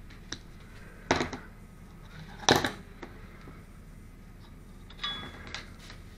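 Small metal hand tools, tweezers and needle-nose pliers, clicking and clattering as they are handled and set down. A few sharp clicks: the loudest two come about a second and two and a half seconds in, then lighter clicks near the end.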